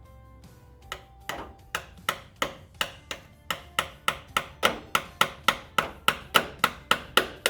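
Hammer driving a screwdriver into a stuck spin-on oil filter: about three sharp metal strikes a second, growing louder, punching through the canister to lever off a filter that was over-torqued.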